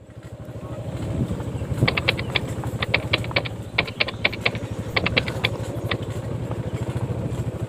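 Small motorcycle engine running steadily with a fast, even beat, with several short runs of sharp clicks in the middle.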